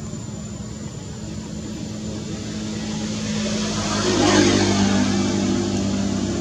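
A motor vehicle's engine running, getting louder, loudest about four seconds in as it passes, with its hum dropping slightly in pitch afterwards.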